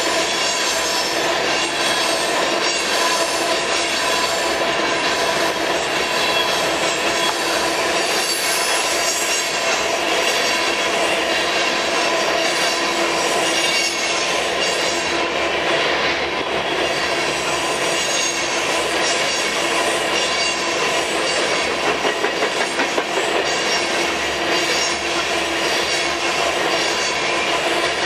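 Freight train of covered hopper cars rolling past close by: a steady rumble of steel wheels on rail, with a continuous high wheel squeal made of several held tones and a regular clack of wheels over the rail.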